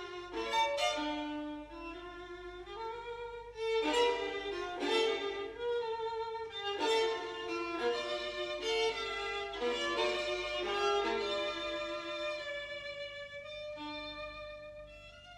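Violin music: a melody of held and moving notes, trailing off near the end.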